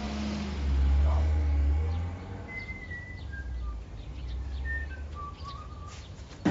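A car engine's low rumble as it pulls away, loudest in the first two seconds and fading out by about four seconds in. Over it come a few short, high whistled notes that step down and up in pitch, like bird chirps.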